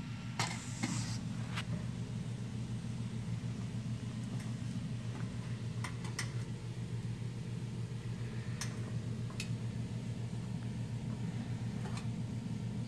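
Steady low hum, with a short rustle in the first second and a few faint clicks scattered through.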